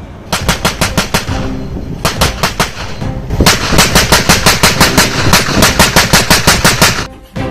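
Automatic gunfire in rapid bursts of evenly spaced shots: a short burst, a second one about two seconds in, then a long burst from about three and a half seconds in that stops shortly before the end.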